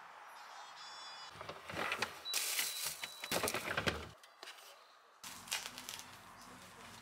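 Plastic food containers and plastic wrapping being handled: a run of short clattering and crinkling sounds, louder in the middle, that stops briefly about four seconds in and comes back more faintly.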